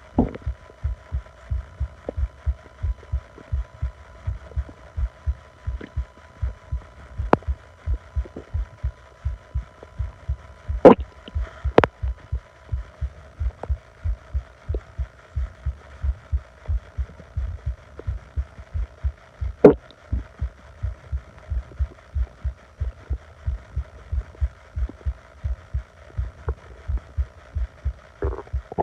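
Close recording of an upset stomach: a steady, even pulse of low thumps, with a few short, sharp sounds about 11, 12 and 20 seconds in. A faint steady high tone runs through the first half.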